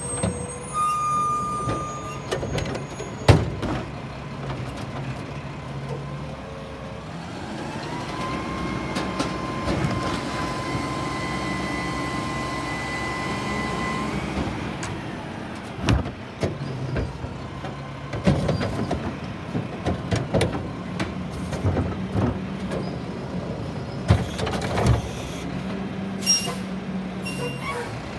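Mack LR garbage truck running while its Curotto-Can automated arm works. A hydraulic whine rises and holds steady for several seconds, then stops. Then come repeated clunks and bangs as carts are grabbed and dumped.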